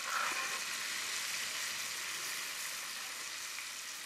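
Fish pieces frying in bubbling oil in a skillet: a steady sizzle, a little louder just after the start as a spatula moves the pieces.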